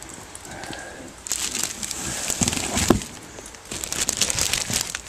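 Crumpled brown packing paper rustling and crinkling as it is pulled about by hand, in two spells, with a couple of dull thumps about halfway through.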